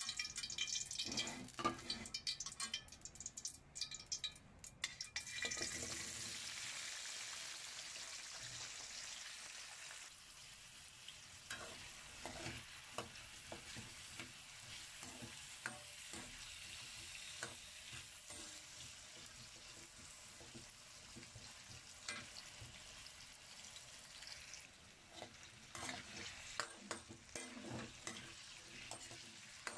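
Diced carrots and potatoes frying in hot oil in a metal wok: a loud sizzle starts suddenly about five seconds in and slowly settles. A metal ladle knocks and scrapes against the wok now and then as they are stirred.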